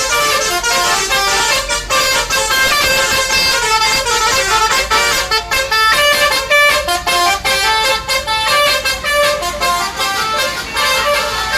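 Bus telolet horn: a Basuri multi-tone melodic horn on a bus playing a tune, loud notes changing several times a second without a break.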